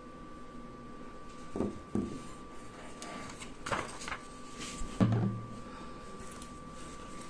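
Handling noises on a tabletop: a few light knocks, then a rustle of a paper sheet being laid down a little past the middle. About five seconds in comes a louder thump as the small motor's parts are set down.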